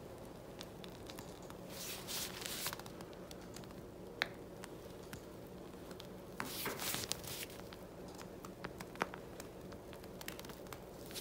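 Faint rustling and squishing of a pastry bag being squeezed to pipe two-tone frosting, with short bursts of rustle about two seconds in and again around six to seven seconds, and a few sharp clicks.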